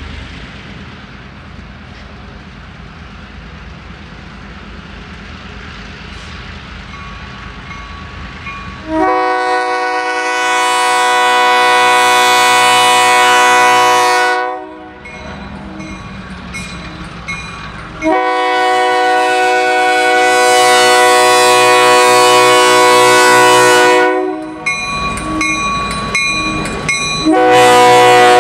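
Three GP15-1 diesel-electric locomotives approach, their EMD 645 V12 engines growing louder. About nine seconds in, the lead unit's multi-chime air horn sounds one long blast, a second long blast follows about eighteen seconds in, and a third starts near the end, with engine rumble and wheel clatter between blasts.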